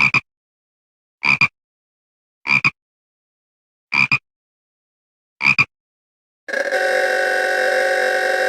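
Old-style telephone bell ringing in short double rings, five times about a second and a half apart. Then a steady harsh buzzing tone starts and runs for about two and a half seconds.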